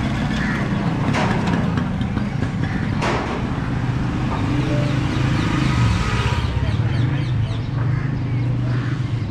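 Busy street noise: a steady low rumble of vehicle engines, with a couple of sharp clacks.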